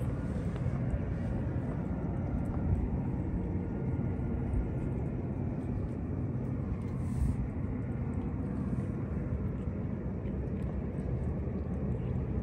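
Steady low rumble of distant city traffic, with a faint engine hum underneath.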